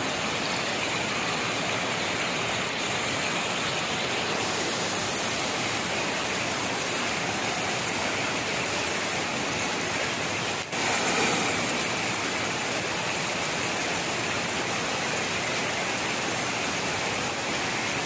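Water pouring steadily over a low weir, a constant rushing, with a momentary break a little past halfway.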